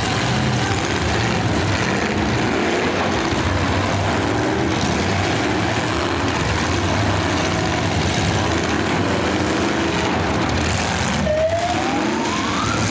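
Demolition derby cars' engines running and revving together, a dense steady din, with a single rising whine near the end.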